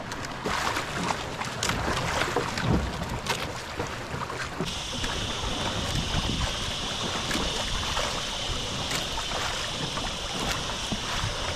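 Wind and sea water around a small outrigger boat, with scattered light clicks and knocks of fishing line and bait being handled on board. About four and a half seconds in, a steady high-pitched hiss starts suddenly and continues.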